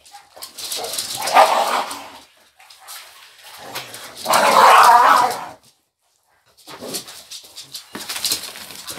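A small dog making two rough, noisy sounds: a shorter one about a second in and a louder, longer one around four to five seconds in.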